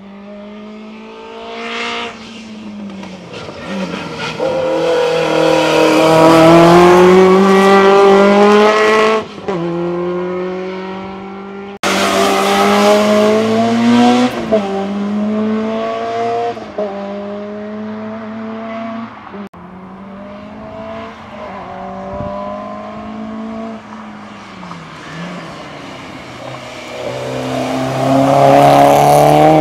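Hill-climb race car engine at full throttle, revving up through the gears: its pitch climbs, drops sharply at each gearchange, and climbs again. It is loudest about six to nine seconds in and again near the end.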